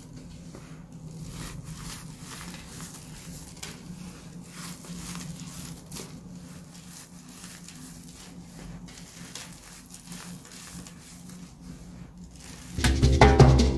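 Hands crushing and crumbling a heap of baking soda mixed with dry soap shavings: a dense, irregular crunching and crackling. About a second before the end, loud upbeat music cuts in.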